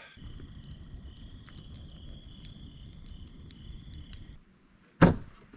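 Campfire crackling under a steady high trill of night insects. Both cut off about four seconds in, and a single loud knock comes near the end.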